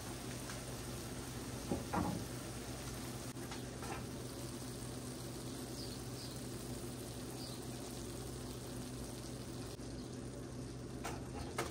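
Minced beef, onion, pepper and shredded cheese sizzling softly in a frying pan on the stove, over a steady low hum. A couple of clunks about two seconds in and again near the end.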